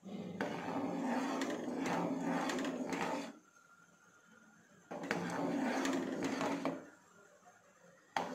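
Steel ladle stirring thick, foaming milk and scraping around the bottom of the pan. It comes in spells of a few seconds with short pauses between.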